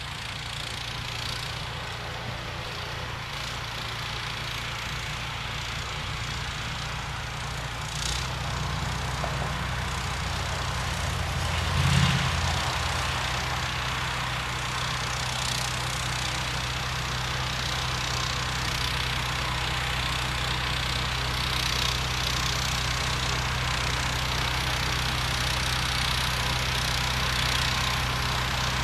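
Modified John Deere 1032 snowblower with a 16 HP engine running steadily, with a brief louder knock about twelve seconds in.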